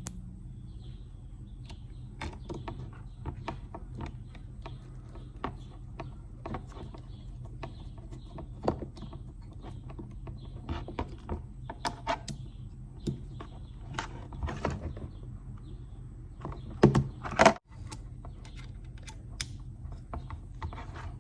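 Small metal clicks and taps of a bicycle rear derailleur's cage and pulley-wheel parts being handled and refitted by hand, over a steady low hum. Two louder knocks come about seventeen seconds in.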